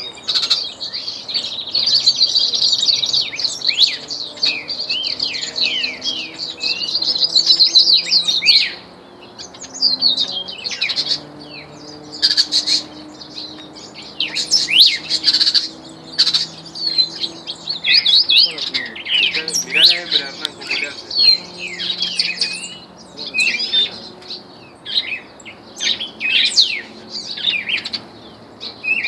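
Caged songbirds chirping and warbling: a dense, fast high warble for the first eight seconds or so, then shorter chirps and call notes scattered through the rest.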